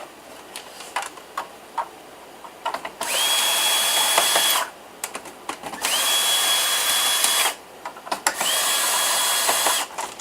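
A power drill running three times, about a second and a half each, its motor whine climbing quickly to speed and then holding steady, to back out screws while a PC tower is taken apart. Light clicks of handling come between the runs.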